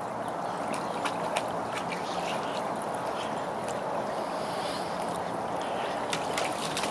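Small floating solar fountain spraying into a kiddie pool: a steady patter of falling water, with faint small splashes from dogs wading in the shallow water.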